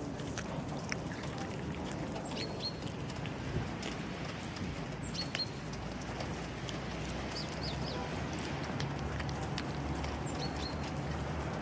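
A cat chewing and lapping wet food, a scatter of small wet clicks and smacks, over a steady outdoor hum. A bird gives a short high chirp about every two and a half seconds.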